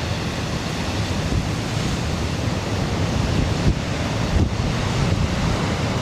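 Heavy storm surf breaking and churning over rock ledges, a dense deep rumble of rough sea, with strong wind buffeting the microphone.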